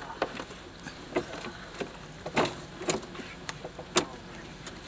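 A handful of short knocks and clunks, about six spread over a few seconds, the loudest near the start and about four seconds in, from a plastic fish cooler being handled on a small sailboat.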